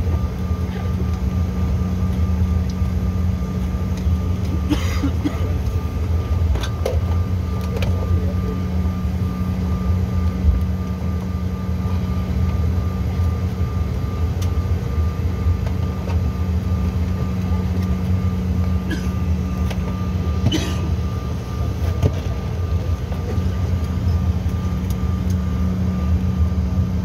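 Cabin noise of a Bombardier CRJ900 on the ground with its turbofan engines running at low power. It is a steady low rumble with a steady whine over it, and a few faint clicks and knocks.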